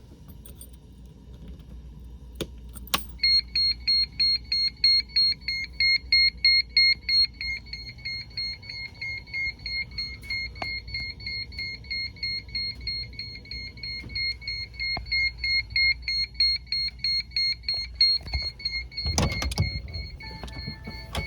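Weather radio receiver's alert alarm: a high electronic beep repeating about three times a second, starting about three seconds in after two clicks, over a low hum. A short burst of rustling noise comes near the end.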